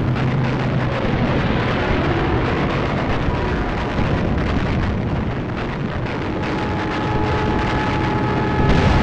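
Added battle sound effects: a continuous din of rapid anti-aircraft gunfire and explosions over a heavy rumble. A steady higher tone joins in about six and a half seconds in.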